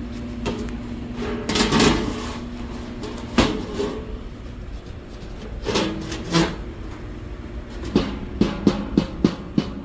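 Steel stove parts clanking as they are handled and struck: a few separate ringing metal knocks, then a quick run of about six strikes near the end.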